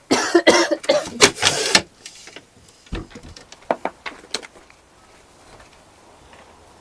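A window being slid open with a loud rattling scrape lasting nearly two seconds, then a few light knocks and clicks.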